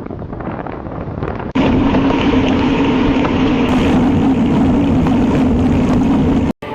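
Vehicle driving noise: a steady engine and road drone with wind on the microphone. It jumps suddenly louder, with a strong low hum, about a second and a half in, and cuts out just before the end.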